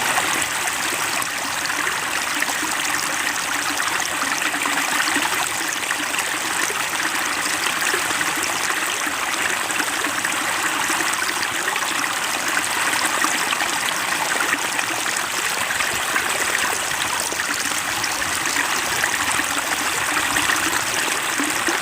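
Flowing water of a small stream, a steady rushing and trickling that doesn't change.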